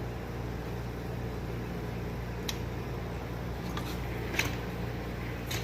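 Steady low machine hum, with two light clicks about halfway through and near the end.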